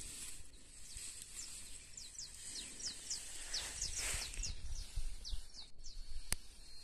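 A bird calling in a rapid run of short, high, falling chirps, several a second, over a low rumble. A sharp click near the end.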